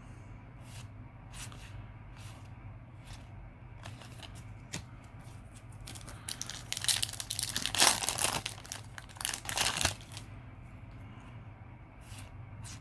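Foil wrapper of a Yu-Gi-Oh! booster pack being torn open and crinkled: soft scattered rustles, then a louder stretch of tearing and crinkling about seven to ten seconds in.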